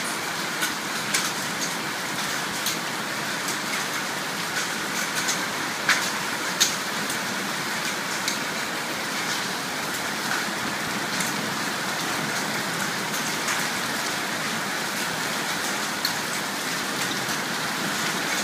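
Hail and rain falling on a sheet-metal roof: a steady hiss of rain with scattered sharp pings of hailstones striking the metal, the loudest about six seconds in.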